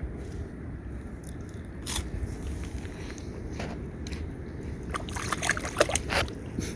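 Water sloshing around a canoe with a steady low wash, and a few hollow knocks and clunks, most of them bunched together about five to six seconds in.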